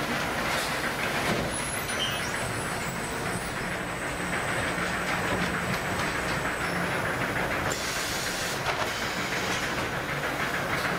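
Automated sack-palletizing machinery running: a steady mechanical rumble and hum, with a few light clicks.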